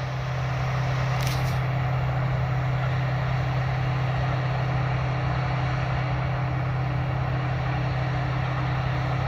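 Vehicle engine idling steadily with a low, even hum, and a short hiss about a second in.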